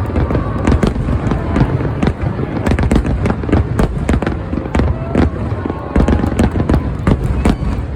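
Fireworks display: a rapid barrage of shells bursting, with low booms and many sharp cracks in quick succession.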